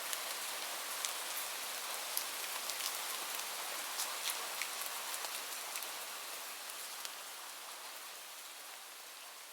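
Steady rain with distinct drops pattering, gradually fading down over the last few seconds.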